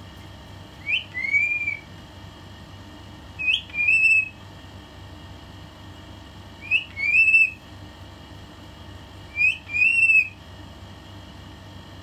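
Pet common myna whistling the same two-note phrase four times, about every three seconds: a short rising note followed by a longer arched one.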